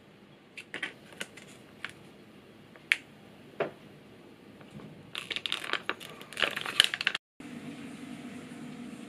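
Plastic soup pouch crinkling and clicking as it is handled, then crackling in a quick run of bursts as the soup is squeezed out and poured into a wooden cup. After an abrupt break near the end, a steady low hum.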